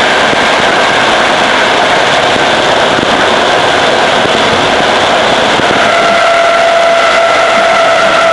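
ČD class 460 electric multiple unit running at speed, heard from on board: a loud, steady rushing noise of the moving train with the whine of its traction motors, which stands out more clearly about six seconds in.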